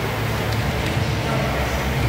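Air-resistance rowing machine flywheel whirring steadily as an athlete rows hard, with a low hum and fan-like rushing.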